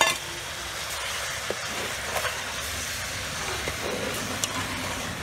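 Steady sizzling hiss of fish and boiled eggs cooking in caramel sauce in an aluminium pot, with a few light knocks of a metal ladle against the pot as they are stirred. The sharpest knock comes right at the start.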